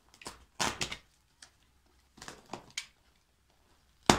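Box cutter scraping and cutting at the plastic strapping band and packing tape on a cardboard box, in a few short rustling strokes, with a sharp click near the end.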